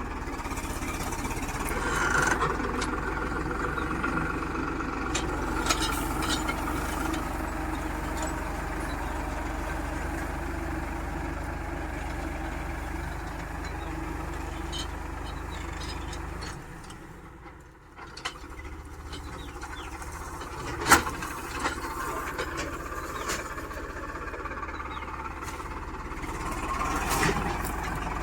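Farmtrac 6055 tractor's diesel engine running steadily. It briefly drops away about 17 seconds in, and there is one sharp knock about 21 seconds in.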